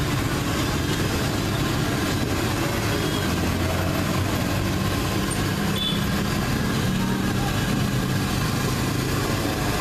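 A motor vehicle engine idling with a low steady hum, over street traffic, while battered stuffed tofu (gehu) deep-fries in a large wok of bubbling oil with a steady hiss.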